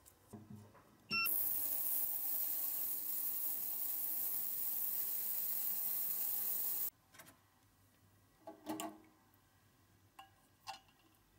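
Ultrasonic cleaner starting with a short beep about a second in, then running with a steady hiss and hum for about six seconds before cutting off suddenly. Afterwards come a few small clicks and splashes as the wet plastic parts are handled.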